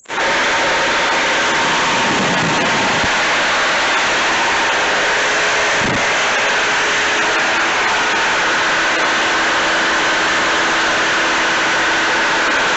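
Compressed air hissing steadily from an air hose nozzle, blowing debris out of the machine. It starts abruptly and cuts off abruptly.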